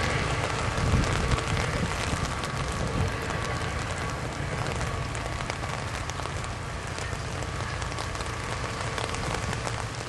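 Steady rain hissing, with the low rumble of a departing NJ Transit commuter train that is loudest about a second in and eases slightly as the train pulls away.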